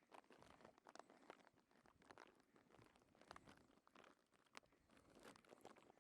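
Near silence with faint, scattered crackles and rustles.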